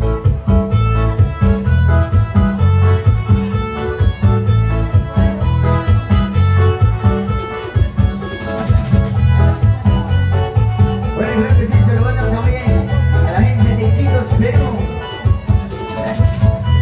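Live cumbia band music with a steady, repeating bass line and beat under a keyboard and guitar melody. About eleven seconds in, a busier, higher melodic line comes in.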